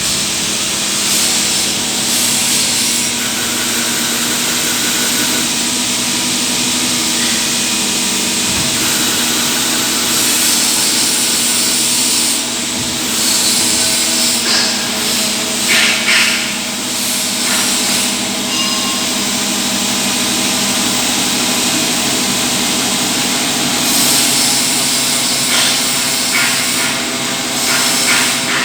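CNC lathe running while turning a pulley: steady motor and spindle tones under the hiss of the cut. The cutting noise swells and eases a few times.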